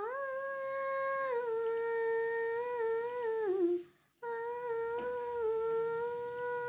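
A voice humming a song melody in two long held phrases, with a short break about four seconds in; the first phrase slides up at its start and dips at its end.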